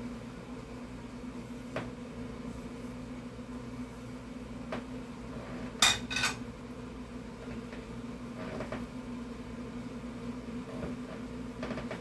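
A dinner plate set down on a gas stove's grate: two sharp clinks about six seconds in, a few faint knocks of handling either side, over a steady low hum.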